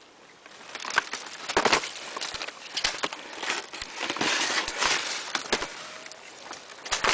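Bare birch branches and twigs brushing and snapping against someone pushing through a thicket: an irregular run of sharp cracks and rustles, busiest about halfway through.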